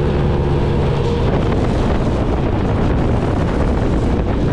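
Wind rushing over the microphone of a moving motorcycle, with the engine's low drone underneath, steady and loud throughout.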